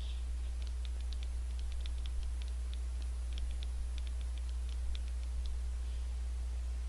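Light, irregular clicks of thumbs tapping and typing on a smartphone touchscreen, several a second, stopping about five and a half seconds in. A steady low electrical hum runs underneath.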